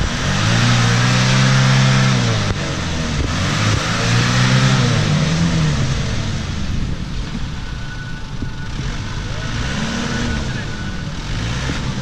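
A 4x4 engine revving hard in three surges, its pitch rising and falling each time: one long surge at the start, a second about 3.5 seconds in, and a shorter one near the end. The wheels spin and churn in deep mud as the vehicle works to climb out of the ruts.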